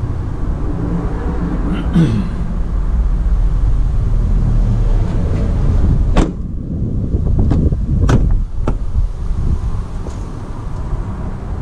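A Ford Transit's side door slammed shut about six seconds in, followed by several shorter sharp clicks and knocks as the front cab door is unlatched and opened, over a steady low rumble.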